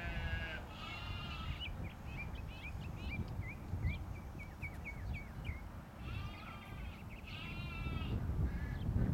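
Sheep bleating: four wavering bleats, two near the start and two more about six and eight seconds in. Between them runs a string of short high chirps, and a low wind rumble on the microphone grows louder near the end.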